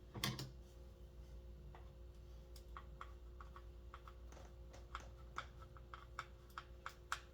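A knock, then scattered light clicks and ticks of small hand work on a chainsaw's kill-switch assembly, typical of a screwdriver snugging down the switch's screw. The clicks come irregularly, a few each second, more often from about two and a half seconds in.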